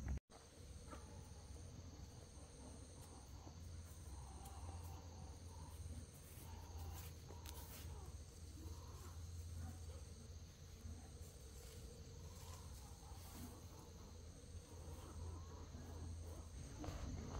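Insects trilling: one shrill high tone holds steady while a second, higher one switches on and off in pulses, over a low rumble.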